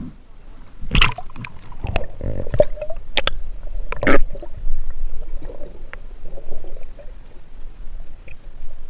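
Splashing and sharp knocks, the loudest about four seconds in, as the camera goes under the river surface, followed by muffled underwater sound.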